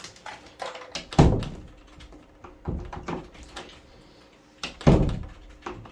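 Door swinging shut with a loud thud about a second in and again near the end, with smaller clicks from the handle and latch between: the newly fitted Kwikset latch is being tried to see whether the door closes.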